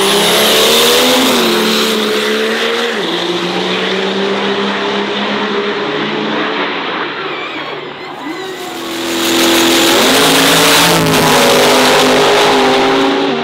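Drag racing engine running hard under full throttle, its pitch jumping in steps as the gears change. The sound eases about eight seconds in, then comes back loud.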